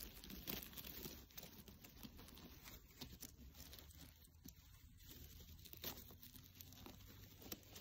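Faint, scattered rustling and crackling of dry forest-floor litter being disturbed, in otherwise near silence.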